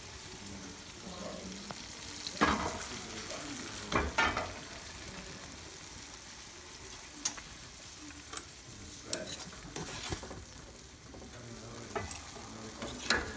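A steady hiss of boiling water and a sizzling pan of cherry tomatoes, with a metal slotted spoon knocking and scraping against the pot and pan about ten times as gnocchi are scooped into the sauce.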